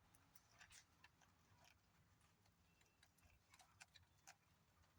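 Near silence, with faint, scattered light clicks.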